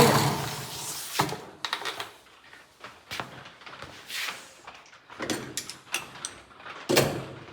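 Hand tools being put away: scattered clinks and knocks, a short sliding sound about four seconds in, and a louder knock near the end.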